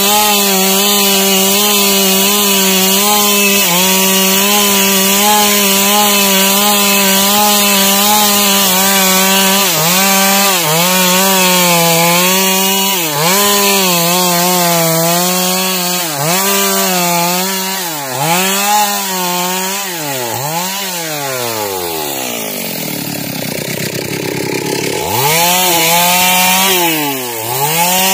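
Stihl two-stroke chainsaw ripping lengthwise along a log at full throttle, the engine note steady at first. Past the middle the engine speed dips again and again as the chain loads up in the cut, then falls to a low idle for a few seconds before revving back up near the end.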